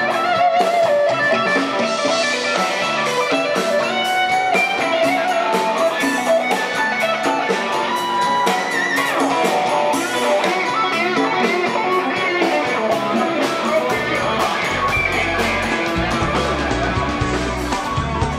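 Guitar-led band music with a steady beat and no singing; a deep bass line comes in near the end.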